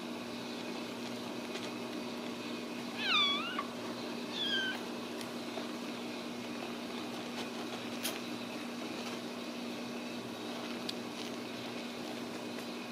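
Two short, high-pitched mews from a Ragdoll kitten about three seconds in, a second apart, the first dipping then rising in pitch, over a steady low hum.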